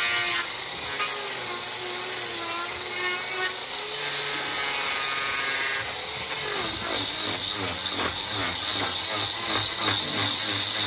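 Chainsaw cutting wood, its engine note wavering up and down with the load; after about six seconds the sound turns choppier.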